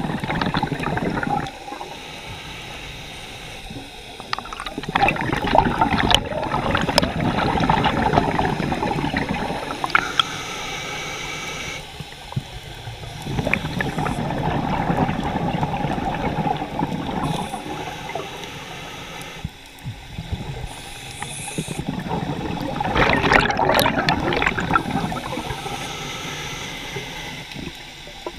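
Scuba diver breathing through a regulator, heard underwater: long gurgling rushes of exhaled bubbles alternate with quieter inhalations, about three full breaths.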